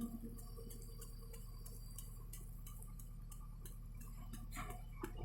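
Quiet room tone: a steady low hum with faint, evenly spaced ticks.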